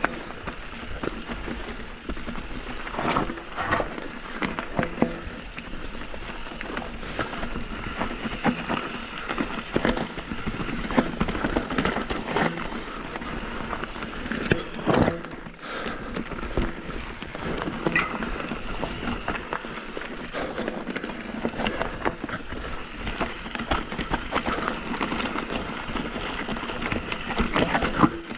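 Mountain bike riding down a dry, stony dirt singletrack: tyres crunching and rolling over loose dirt and rocks, with the bike rattling and clacking over bumps. Sharp knocks now and then, the loudest about fifteen seconds in.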